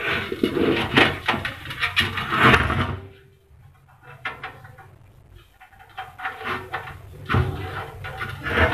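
Handling noise from assembling a sheet-metal battery charger case: irregular clicks, taps and scraping as a wire and a small plastic indicator fitting are pushed through the metal panel, quieter for a few seconds in the middle.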